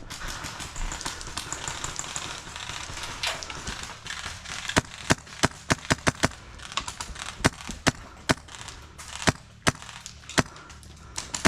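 Scattered airsoft gunfire: sharp single cracks at irregular intervals, some in quick pairs and runs, over rustling movement in the first few seconds.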